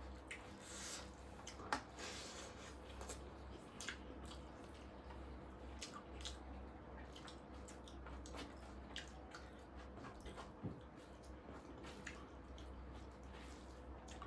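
Faint eating sounds: chewing and wet mouth smacks, with scattered soft clicks and taps.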